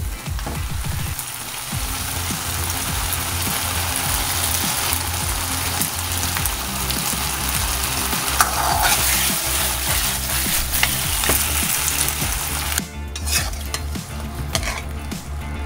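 Shrimp and vegetables sizzling in a hot wok while a metal ladle stirs and tosses them, scraping and knocking against the pan. The sizzle flares briefly as chili oil goes in, then dies down about thirteen seconds in.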